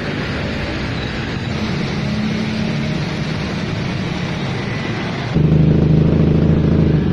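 Custom 300cc two-cylinder engine in a Suzuki Satria FU motorcycle, built with a screamer firing order rather than big bang, idling steadily. About five seconds in there is an abrupt cut to a louder, closer recording of the engine still idling.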